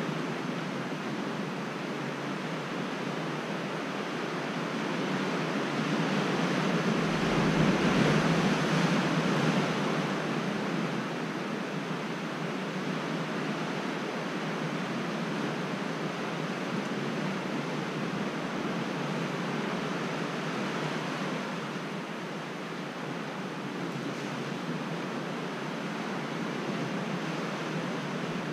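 Ocean surf washing steadily below sea cliffs, with one wave swelling louder and fading away about eight seconds in.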